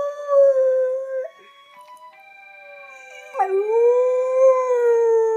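Dog howling in long, wavering held notes. The first howl ends about a second in. After a short lull, a second howl starts with an upward scoop a little past three seconds and is held.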